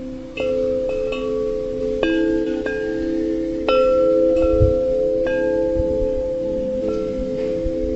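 Chime notes struck one after another at irregular intervals, about ten in all, each ringing on and overlapping the others like wind chimes. A few soft low thuds sit under the ringing.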